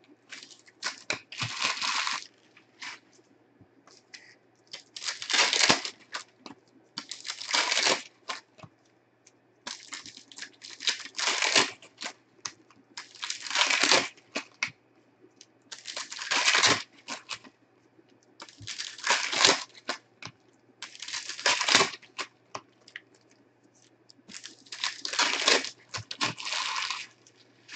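Plastic trading-card pack wrappers, Panini Prizm basketball packs, torn open and crumpled by hand. The crinkling and tearing come in about nine short bursts, one every two to three seconds.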